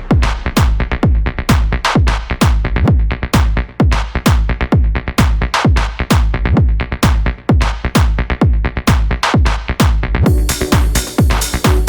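Electronic dance background music with a steady, fast kick-drum beat; a brighter high percussion layer comes in near the end.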